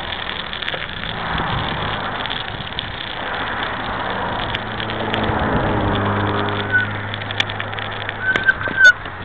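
Knobby mountain-bike tyre rolling over slushy, snow-covered concrete, with wind on the microphone. A low, steady engine hum swells through the middle, and a few brief high squeaks and clicks come near the end.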